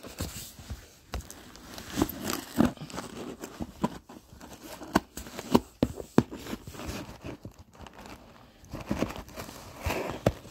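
Scissors opening a shipping box: irregular crinkling and tearing, with scattered sharp clicks and knocks.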